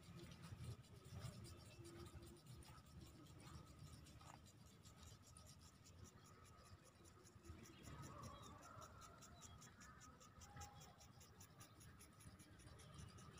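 Near silence: faint outdoor ambience, with a faint low rumble and a faint, rapid, even high ticking over the second half.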